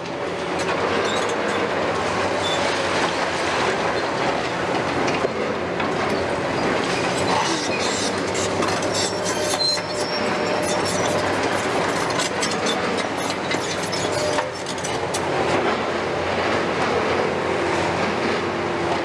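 Heavy demolition excavators working: a long-reach machine's attachment crunches through brick and concrete while diesel engines run under hydraulic load. Debris and metal clatter constantly in a dense run of knocks.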